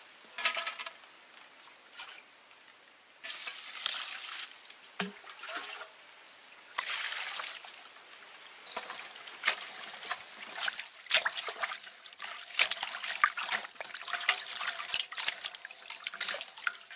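Water splashing and sloshing in a metal basin as hands swish and rub a bunch of flowering chives clean. The splashes come in irregular spurts, sparse at first and busier in the second half.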